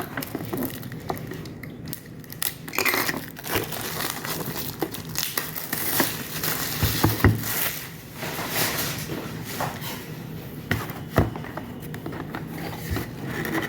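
Packaging crinkling and rustling as it is torn open by hand, with irregular sharp crackles and small tearing sounds.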